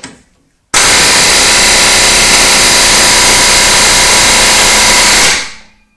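A power tool's motor starts abruptly, runs loud and steady for about four and a half seconds, then winds down and fades out near the end.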